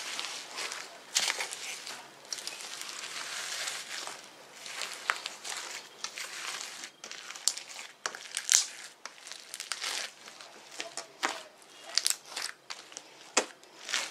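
Hands squeezing and kneading foam-bead slime (floam) in a metal bowl: a steady crunchy crackling for the first several seconds, then scattered sharp pops and clicks.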